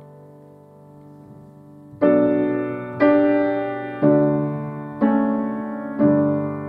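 Knight upright piano playing slow chords: a chord dies away, then from about two seconds in five chords are struck about once a second, each left to ring and fade.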